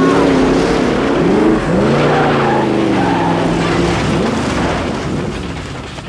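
Monster truck engine revving hard as it drives up onto a car, its pitch rising and falling over a rough noise, fading away in the last couple of seconds.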